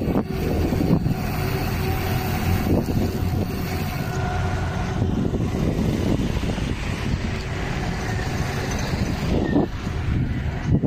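Road noise heard from a moving bicycle: a steady rumble of wind on the microphone mixed with motor traffic.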